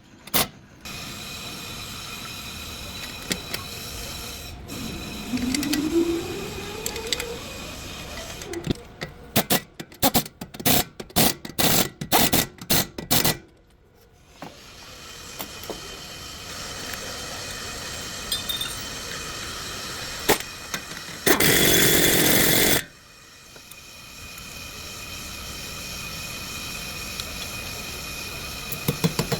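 Workshop tool sounds: a motor winding up in pitch, a quick run of sharp metallic clicks and knocks, then a loud hissing burst lasting about a second and a half, over a steady background.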